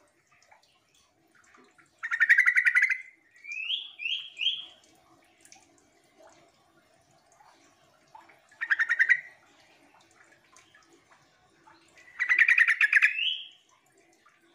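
Yellow-vented bulbul (trucukan) calling: three bursts of rapid, harsh chattering, about two seconds in, around nine seconds and near the end. The first burst is followed by three quick rising whistled notes, and the last ends in a rising note.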